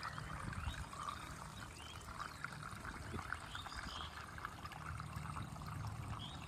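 Steady trickle of water, with faint short chirps scattered through it and a low rumble underneath.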